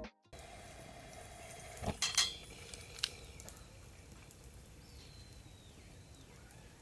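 Camp cooking gear clinking lightly a few times, about two seconds in and again a second later, over a quiet outdoor background.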